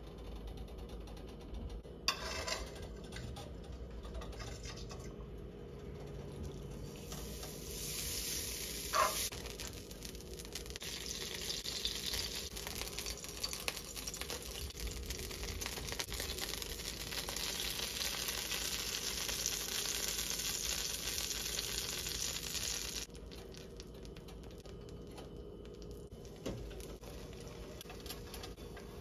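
Pancake batter sizzling in a hot nonstick frying pan, a steady hiss that starts about a quarter of the way in and cuts off abruptly about three-quarters through. A few sharp clicks of utensils come before it.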